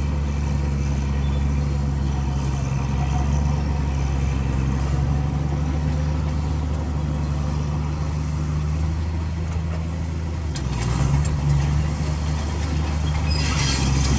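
Komatsu D85 crawler bulldozer's diesel engine running steadily with a low hum. About ten seconds in the engine note shifts, and a short burst of harsher, rattling noise comes near the end.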